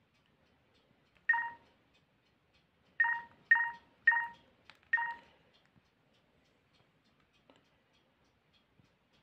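LG KP500 mobile phone's touchscreen dialpad sounding a short key tone with each digit pressed: one beep, then a pause, then four more about half a second apart, all at the same pitch and each fading quickly.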